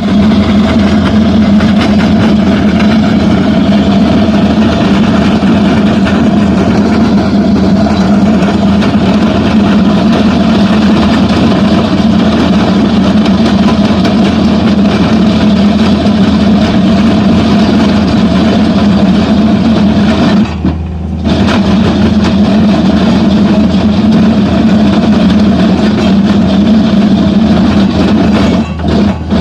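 Skid-steer loader with a road planer attachment milling concrete pavement: the diesel engine runs under load while the cutting drum grinds the concrete in a steady, loud noise. The grinding drops away for under a second about two-thirds of the way through.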